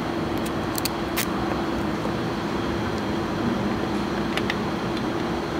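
Steady machine drone with a low hum throughout. A few small, sharp metallic clicks come about a second in and again near the end, as a steel bolt and washers are handled and the bolt is started by hand into a riv-nut insert.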